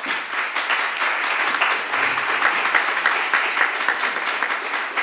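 Audience applauding steadily, many people clapping at the close of a lecture.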